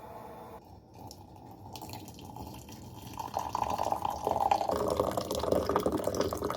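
Liquid pouring or running into a container, getting louder about three seconds in and stopping abruptly at the end.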